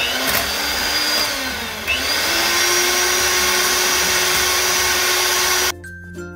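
Cuisinart electric hand mixer running at speed, its beaters whisking eggs and sugar while melted chocolate is poured in. The motor pitch dips and recovers about two seconds in, then holds steady until the mixer cuts off near the end.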